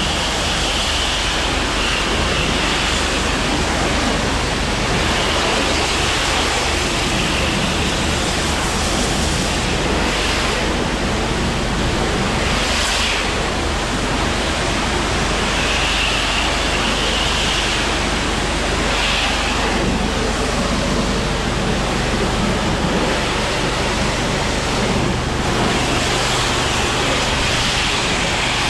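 A 10 1/2 GPM pressure washer spraying a rinse: a steady, loud hiss of high-pressure water over a constant low machine hum, with a brighter hissing edge that swells and fades several times.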